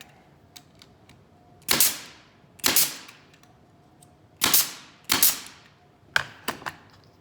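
Nails being driven to fasten one side of a small wooden picnic-table frame: four loud sharp shots, each ringing briefly, spaced about one to two seconds apart, then three lighter clicks near the end.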